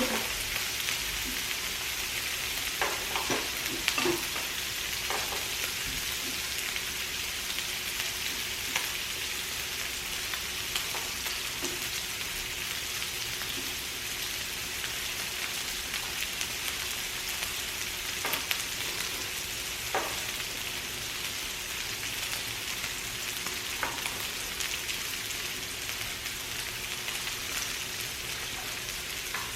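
Pork belly and garlic sizzling steadily in a hot grill pan, with a few light clicks scattered through.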